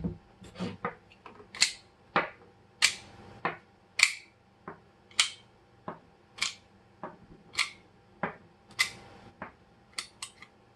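Cartridges being thumbed one by one out of a 1911 pistol's magazine, a steady series of sharp metallic clicks about one or two a second as each round is pushed free and drops.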